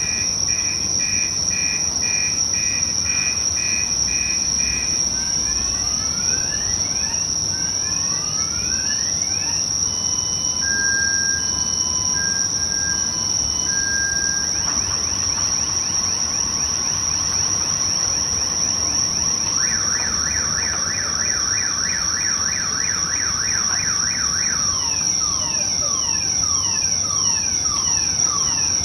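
Car alarm cycling through its tone patterns: a run of beeps, falling sweeps, slow beeps at two pitches, a fast warble, rapid pulses, then falling sweeps again. Over it, and louder, a steady high insect chirring.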